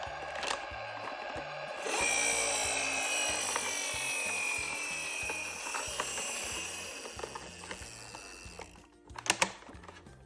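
A toy car's mechanism whining, starting about two seconds in and slowly falling in pitch as it winds down, over background music with a steady low beat. Two sharp clicks near the end.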